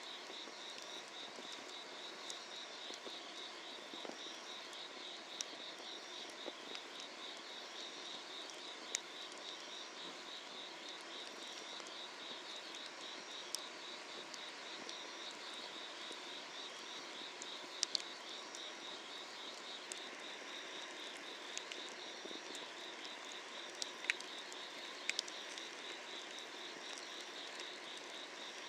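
Summer-night insects chirping in a steady, rhythmic pulsing trill, over a soft even hiss. Now and then a sharp crackle or pop from the burning firewood, a pair of them about two thirds of the way in and a cluster near the end.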